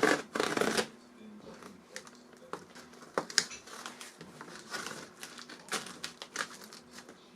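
Packaging being handled: scattered crinkling and rustling with light clicks, a louder rustle in the first second, then irregular small handling noises.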